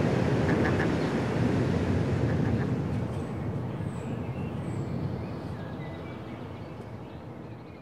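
Outdoor ambience: a steady low rumble of noise with a few faint high bird chirps, fading out gradually.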